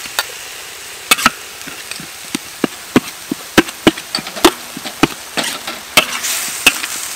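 A metal spoon clanks and scrapes against a large steel wok while stir-frying onions and spice paste, with sharp, irregular knocks about two a second.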